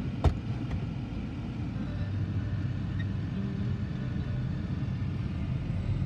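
Car engine running, heard from inside the cabin as a steady low rumble, with one sharp knock about a quarter of a second in.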